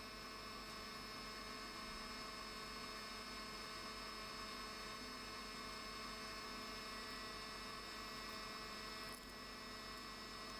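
Steady electrical hum with a faint high whine, unchanging throughout.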